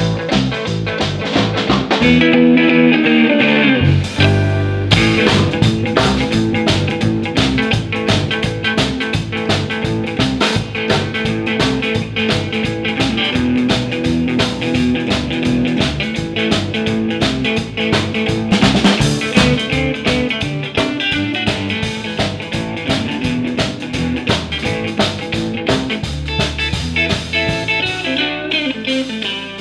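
Instrumental rock-and-roll and blues played by a small band: a Gretsch hollow-body electric guitar over electric bass and drums. The bass and drums thin out about two seconds in and the full band comes back in at about four seconds.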